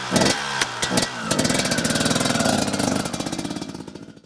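Two-stroke motocross bike engine revved in several quick throttle blips, then pulling away in a steady run that fades out as it rides off.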